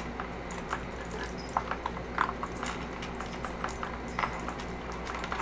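Puppy nosing and pawing at a plastic dog puzzle toy: irregular light clicks and knocks of the plastic pieces being pushed and tapped.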